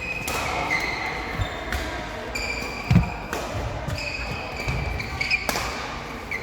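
Sneakers squeaking on a sports-hall court floor, mixed with the knocks and bounces of a ball in play. A heavy thud about three seconds in is the loudest sound.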